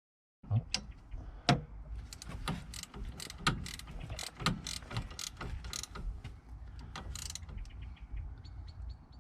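A ratchet mechanism clicking in strokes. Sharper clicks come about once a second, with quicker, fainter clicks between them, starting just under half a second in.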